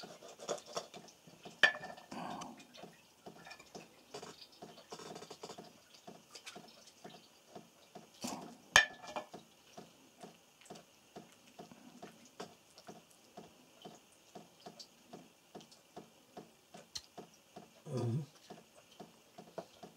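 Quiet handling of a wet, scaled crucian carp over an enamel bowl as its gall bladder is worked out with a knife and fingers, with two sharp clicks about two and nine seconds in. A faint, steady ticking runs underneath, a few ticks a second.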